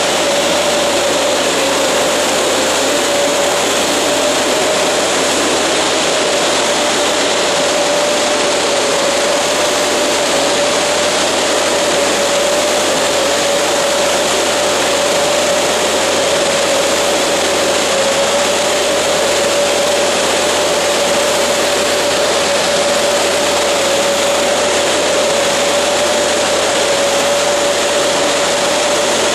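Oscillating fan crop sprayer running while spraying: a loud, steady rush of fan-blown air and spray over a constant mid-pitched hum.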